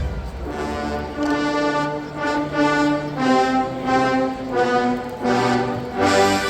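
Marching band brass section playing held chords in a softer passage, each chord swelling and changing about once a second, with little drumming underneath.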